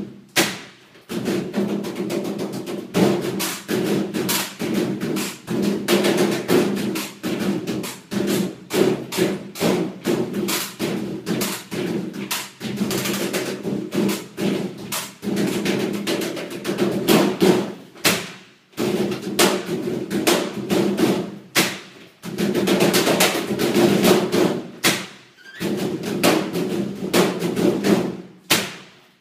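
A tumble dryer's casing drummed on by hand: fast, irregular knocks and thuds over a steady hum, breaking off briefly a few times.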